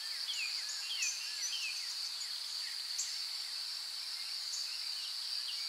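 Dawn nature ambience: a steady high drone of crickets, with birds chirping in short falling notes, mostly in the first couple of seconds and only now and then after that.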